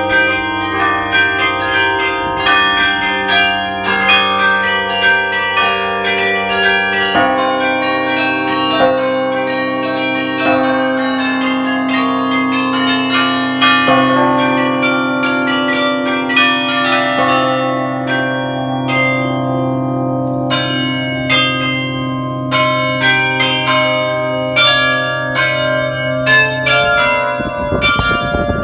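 Carillon of the Bruges belfry playing a tune, heard up close in the bell chamber: many bells struck in quick succession over the deep, lingering hum of the large bells.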